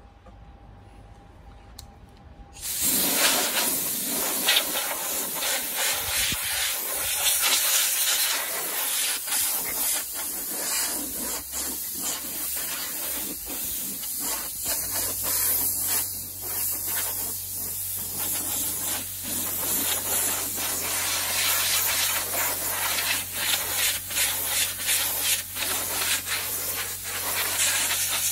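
Compressed-air blowgun hissing continuously as it blows dust out of a computer case, starting suddenly about three seconds in and wavering as the nozzle moves. About halfway through, a low steady hum starts under the hiss.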